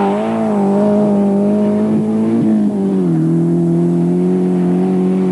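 Rally car engine held at high revs, a steady note that drops a little in pitch about three seconds in and then holds.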